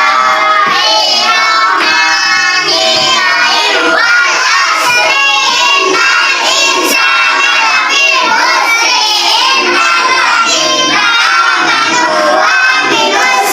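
A class of young schoolchildren chanting a prayer together in sing-song unison, loud and continuous.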